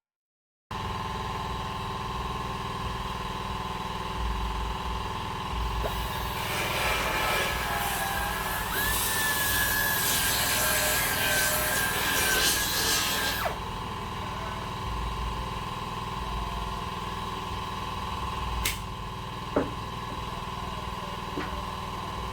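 Pneumatic air belt sander cutting channels into the plastic bumper along its cracks. A steady hum with a ringing tone runs under a louder grinding stretch of about seven seconds in the middle. A couple of sharp clicks come near the end.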